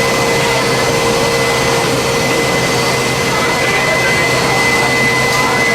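Jet engines running steadily: a loud, even rushing noise with a steady high-pitched whine over it.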